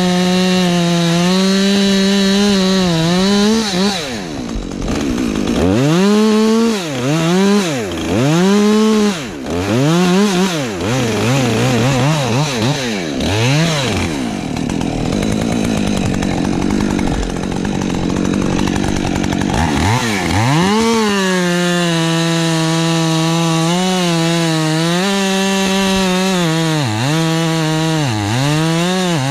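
Husqvarna 550 XP Mark II two-stroke chainsaw running at full throttle with a steady high pitch. A few seconds in, the pitch repeatedly drops and climbs about once a second as the throttle is blipped. After that comes a rougher stretch with no clear pitch, and then the saw winds back up to a steady high pitch, with two brief dips near the end.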